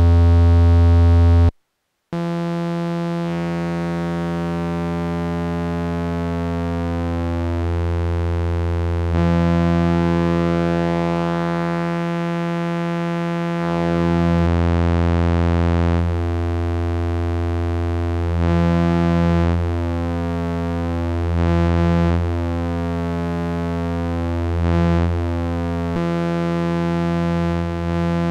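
PWM Malevolent monophonic analog synthesizer holding one continuous droning note in drone mode, its tone colour changing every few seconds as the oscillator waveforms are switched and combined, with slowly shifting phasing through the tone. It drops out briefly about one and a half seconds in and swells in level a few times in the second half.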